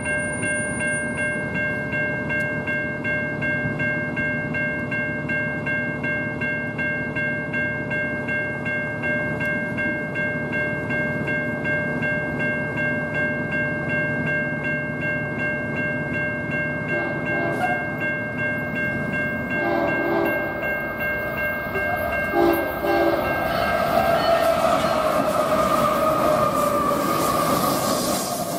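BNSF freight train on the main line: a steady train rumble with a held ringing tone, then locomotive horn blasts from about two-thirds of the way in. Near the end the horn's pitch falls as the locomotive passes and the train grows louder.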